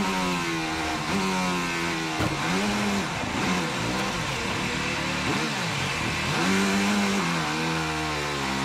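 Onboard sound of a Lotus Formula 1 car's turbocharged V6 engine at racing speed. Its pitch climbs through quick upshifts, then falls and rises again several times as the car brakes and accelerates.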